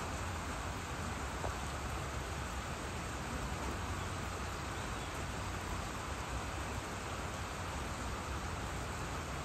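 Steady rain falling with an even hiss, mixed with a continuous insect chorus and a low rumble underneath.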